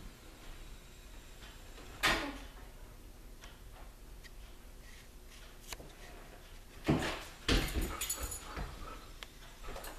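A dog moving across a hard floor as it is released: a burst of claw and paw scrabbling and knocks from about seven seconds in, after a single scuffing thump about two seconds in.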